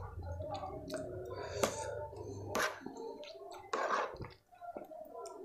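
Close-miked wet squelching of soft khichdi and yogurt kadhi being mixed by spoon and fingers and chewed, with a few wet smacking bursts spaced about a second apart.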